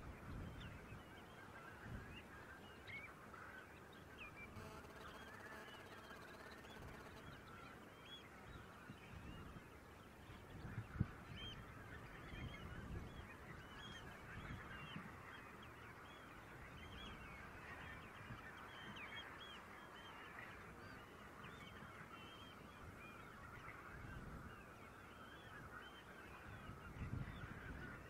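A large flock of coastal waterbirds calling: many short, overlapping calls forming a faint, continuous chorus over a low rumble.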